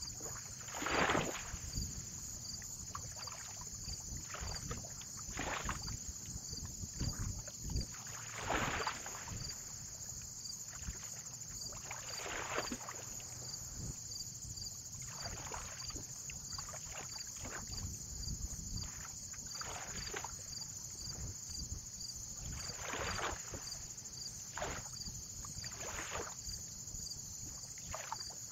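Small waves lapping on a lake shore: a soft splash or swish every two to four seconds, the strongest about a second in and near nine seconds. Low wind rumble and a steady high-pitched hiss run underneath.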